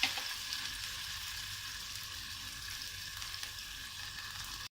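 Chicken breast frying in olive oil in a pan, a steady sizzling hiss. It cuts out abruptly for a moment near the end and then resumes slightly quieter.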